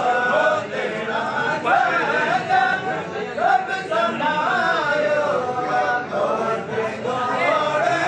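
A group of men's voices chanting together, several voices overlapping.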